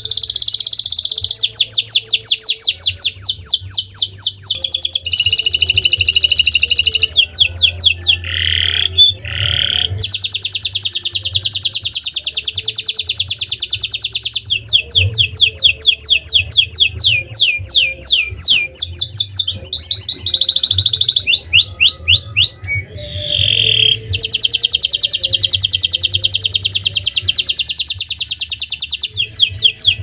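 Domestic canary singing a long unbroken song of fast trills, switching every few seconds between series of separate down-slurred notes and smooth rolling trills, with a few lower, rougher notes about nine seconds in.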